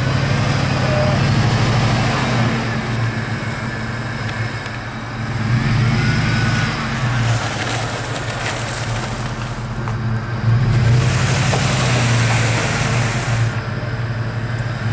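Off-road 4x4's engine running under load as it drives, the engine note swelling a couple of times. About eleven seconds in, a loud rushing noise joins it for a few seconds.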